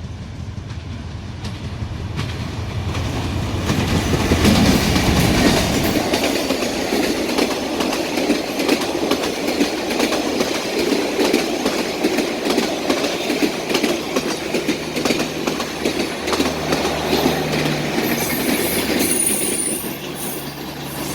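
A diesel-hauled train passing close by: the locomotive's engine drone builds and passes in the first few seconds, then the wagons roll by with a steady rumble and clickety-clack of wheels over rail joints, and a brief high wheel squeal near the end.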